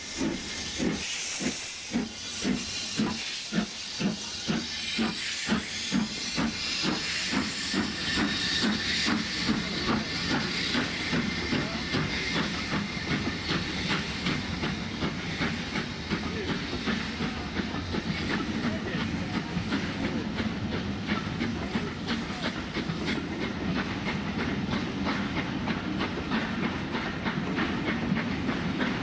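Steam locomotive pulling a train away, its exhaust chuffs starting at under two a second and quickening, over a steady hiss of steam.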